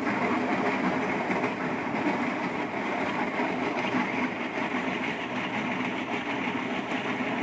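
Micro-trenching machine sawing a narrow slot into the wet road surface: a steady, dense grinding of the blade through the pavement, with the machine's drive running underneath.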